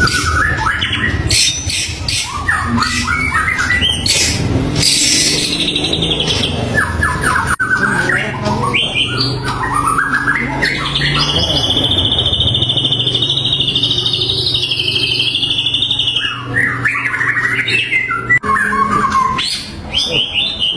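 White-rumped shama (murai batu) singing a varied song of quick whistled phrases and trills, with one long wavering high whistle held for about five seconds in the middle, over a low steady hum.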